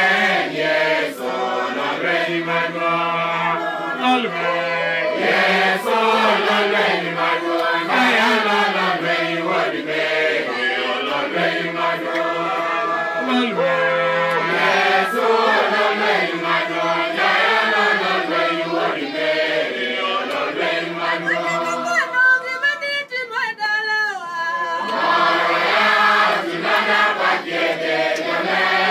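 A congregation singing a hymn together, many voices at once.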